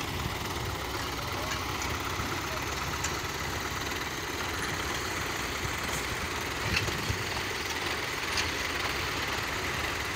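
Several diesel tractor engines idling together in a steady low rumble, with a few brief knocks about two-thirds of the way in.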